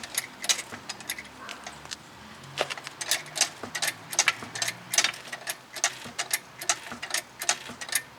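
A jack being worked to raise the lower suspension under the ball joint: a run of sharp metallic clicks and ticks, a few a second, at an uneven pace.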